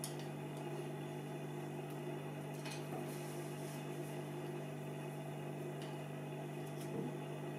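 Steady low hum in the background, with a few faint clicks as a small hooked tool and fingers handle a cassette-deck transport mechanism while a drive belt is being fitted onto the motor pulley.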